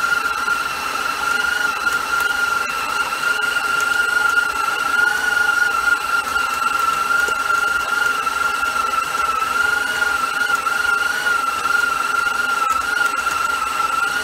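KitchenAid Professional 5 Plus stand mixer running with its dough hook kneading a wet pizza dough in a stainless steel bowl, the motor giving a steady high whine.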